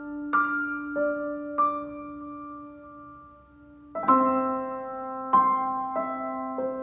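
Slow solo piano music: single notes and chords struck a few seconds apart and left to ring out.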